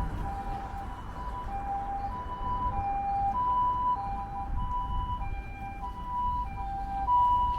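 Japanese ambulance siren sounding its two-tone hi-lo "pee-po" call, a higher and a lower note alternating about every half second, over low traffic rumble.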